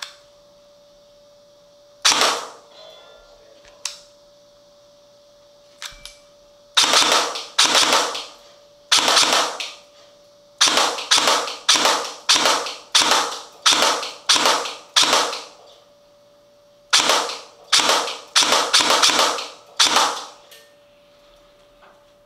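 G&G PCC45 electric airsoft gun firing single shots. There are a few spaced-out shots, then a long string at about two shots a second, a short pause, and a second quick string.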